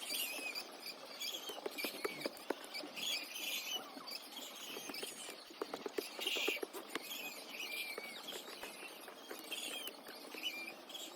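Poultry chicks peeping: many short, high chirps overlapping throughout, over scattered light clicks and rustling.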